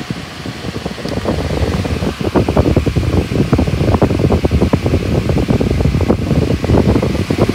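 Lasko 18-inch Cyclone pedestal fan running, an uneven rush of moving air that grows louder about two seconds in.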